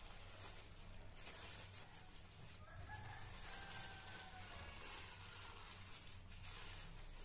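Thin plastic bag crinkling now and then as hands fold it up. One faint, distant bird call lasting about two seconds starts about three seconds in, over a steady low hum.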